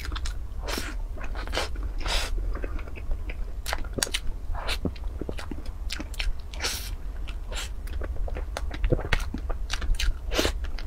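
Close-up mouth sounds of a person eating soft cream-frosted cake from a spoon: irregular chewing and short wet clicks from the mouth, over a steady low hum.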